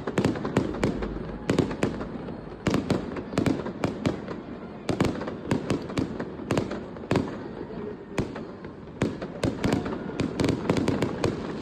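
Fireworks going off in a continuous barrage: many sharp bangs and crackles in irregular clusters, some echoing.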